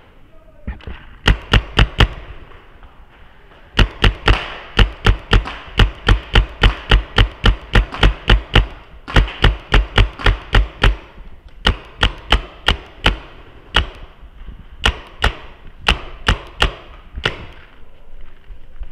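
Paintball marker firing close by in strings of rapid shots, about three to four a second. Three shots come first, then a long string of more than twenty, then two shorter strings after brief pauses.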